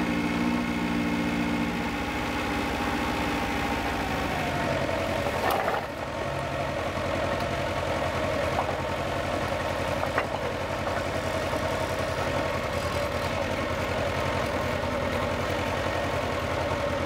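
Nissan forklift engine running steadily while it hoists a heavy, loaded firewood bag by its lifting straps. There are two short knocks, about a third of the way in and again just after the middle.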